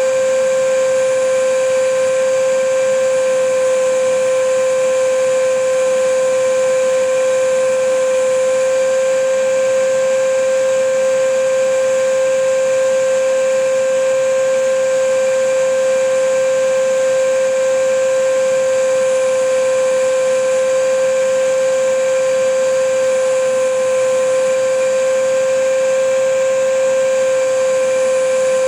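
Vacuum cleaner running continuously: a steady motor whine with an even airflow hiss, unchanging in pitch and level.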